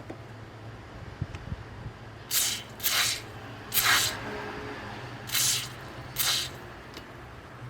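Five short spray bursts, about a second apart, over a low steady hum.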